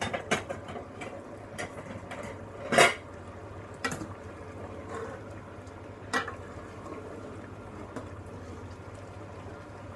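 Metal spoon stirring chicken and taro curry in a metal cooking pot, clinking against the pot a few times, the loudest knock about three seconds in, over a low steady hum.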